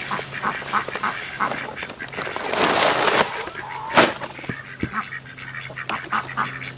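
Ducks quacking among the chickens at a feeder, with a short rush of poultry feed poured from a bag into a plastic bin feeder about two and a half seconds in, and a sharp knock about four seconds in.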